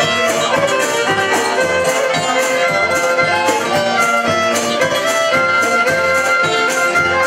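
Live folk band playing, with a fiddle carrying the melody over strummed guitars and drums keeping a steady beat.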